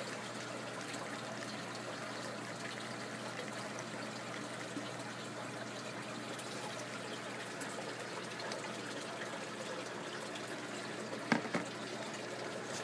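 Water trickling and pouring steadily in an aquaponics system, over a low steady hum. A brief knock sounds about eleven seconds in.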